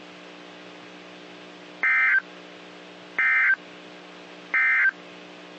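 Three short bursts of warbling SAME digital data tones from a NOAA Weather Radio broadcast, evenly spaced about a second and a half apart. They are the end-of-message code that closes a severe thunderstorm warning. A steady low hum runs underneath.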